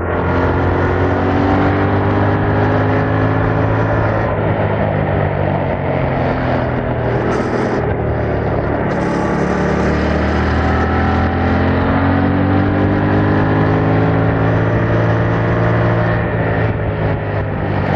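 Yamaha MT-07's 689 cc parallel-twin engine through its stock exhaust, ridden on the road. The engine note eases down over the first few seconds, then climbs steadily through the second half before easing off near the end.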